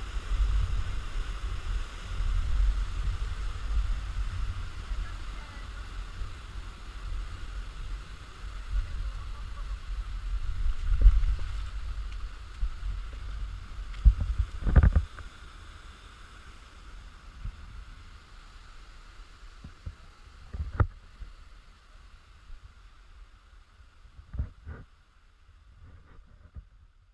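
Wind buffeting the microphone as a low rumble that eases off about halfway through, over a faint steady hiss, with a few sharp knocks from handling of the camera.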